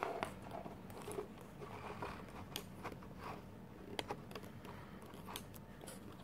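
Faint, scattered small clicks and rustles over a low steady hum.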